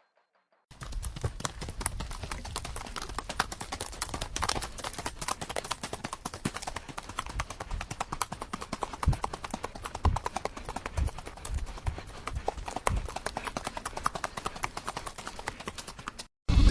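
Horse hooves clip-clopping in a quick, irregular run of many strikes, starting about a second in and cutting off suddenly just before the end.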